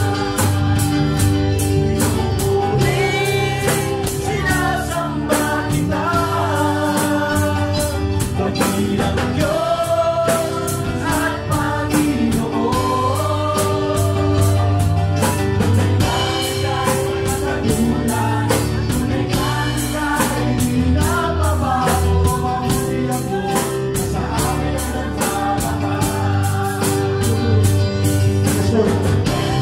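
Live praise-and-worship band playing an upbeat gospel song: voices singing the melody over drum kit and guitar, with a steady, quick drum beat.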